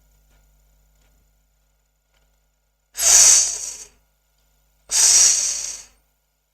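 A person saying the English /f/ sound in isolation twice, each time as a breathy, voiceless 'fff' lasting about a second, with no vowel. This is a phonics drill of the f sound.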